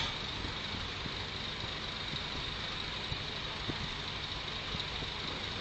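Heavy engine running steadily, with a few faint knocks.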